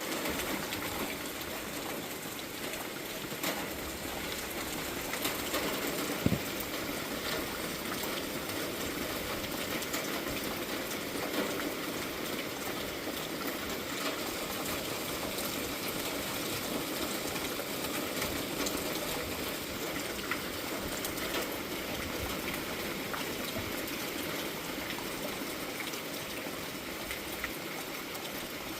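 Heavy rain falling steadily during a thunderstorm, a dense even hiss with scattered drops ticking close by and one sharper tap about six seconds in.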